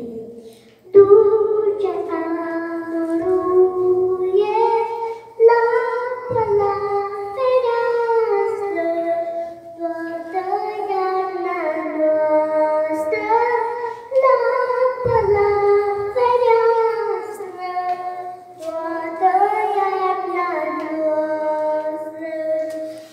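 A young girl singing a folk song into a microphone, in phrases of long held notes that bend between pitches, with short breaths between phrases.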